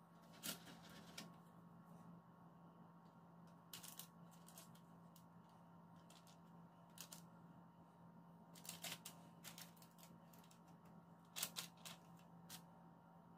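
Near silence, with faint scattered clicks and crinkles from a silicone spatula spreading cake batter over a parchment-lined baking tray, a few at a time every second or two.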